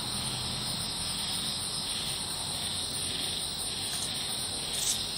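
Insects trilling in a steady high chorus. A light tap near the end is a card being laid on the tile floor.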